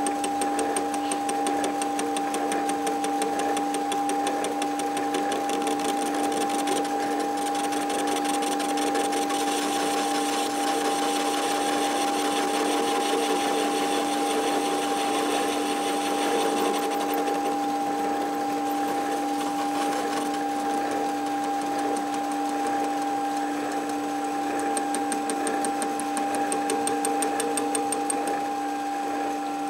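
Metal lathe running at a steady speed with a constant motor and gear whine, while the cutting tool takes a facing cut across the face of a rough casting spinning in a four-jaw chuck.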